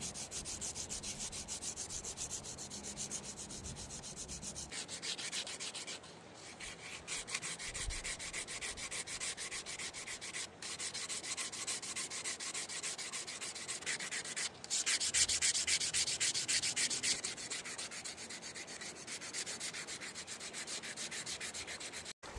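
Sandpaper rubbed by hand over a cherry-wood spoon in quick, even back-and-forth strokes, with a few short breaks.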